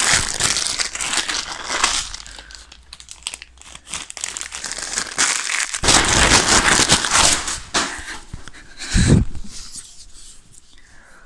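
Paper takeaway bag and packaging crinkling and rustling as they are rummaged through, in two loud spells, then a single dull thump near the end.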